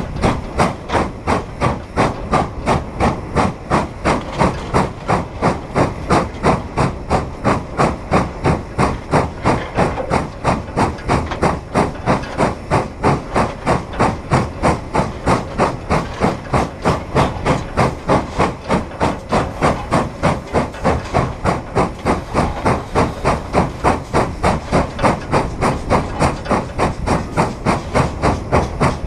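Frisco 1630, a 2-10-0 Decapod steam locomotive, working hard under a heavy freight load: its exhaust chuffs in an even beat of about two to three a second, with steam hissing, heard from atop the tender just behind the cab.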